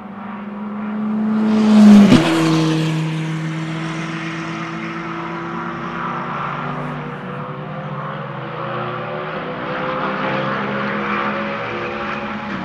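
Racing car, the 1958 Chevrolet, passing close at speed: its engine note builds to a loud peak about two seconds in and drops sharply in pitch as it goes by. It then runs on away round the circuit, the note slowly climbing as it accelerates.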